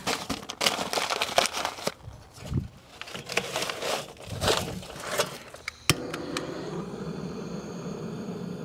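Paper crumpling and lumps of mesquite charcoal shifting inside a metal chimney starter. About six seconds in, a sharp click as a handheld gas torch lights, then the steady hiss of its flame.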